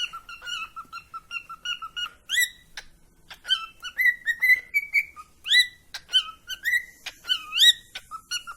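Cockatiel whistling: a quick run of short repeated chirps, about four a second, then a series of whistled notes that sweep upward in pitch.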